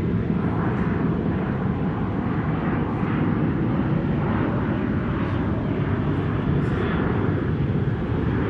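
Steady low rumbling outdoor noise, even in level, with no distinct events.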